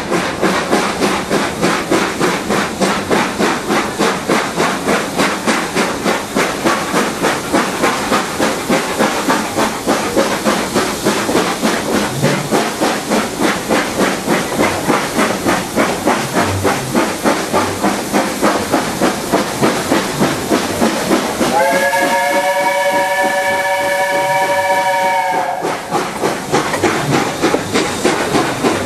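Steam locomotive working hard, heard from a carriage: its exhaust beats run at an even rhythm of about four a second. About two-thirds of the way through, the engine's whistle sounds a steady chord of several tones for about four seconds.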